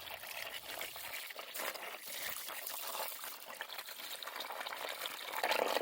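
Water pouring and trickling into a container, mixing up more Deox C derusting solution.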